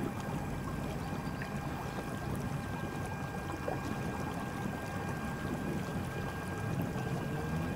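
Newport NK180 electric trolling motor driving a kayak at speed: a steady thin whine over the rush and splash of water along the hull and wake.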